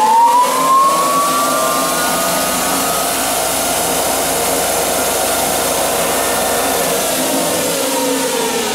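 Grizzly G0602 lathe's VFD-driven Leeson motor and geared spindle whining at full 120 Hz speed in reverse. The whine finishes rising as the spindle comes up to speed and then holds steady. Near the end the pitch starts to fall as the drive begins braking the spindle to reverse it.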